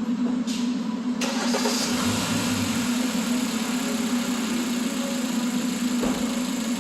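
2013 Kia Optima's four-cylinder engine starting about a second in and then running at idle, with a new spark plug just fitted in cylinder 2 to cure a misfire.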